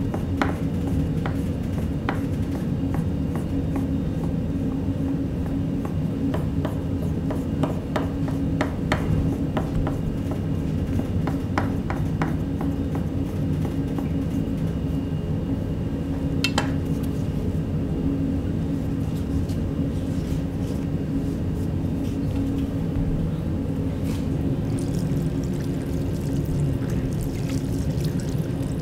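A chef's knife cuts through raw pork belly on a wooden cutting board, the blade clicking and tapping against the wood many times through the first half, over a steady low hum. Near the end, marinade is poured over pork in a steel tray.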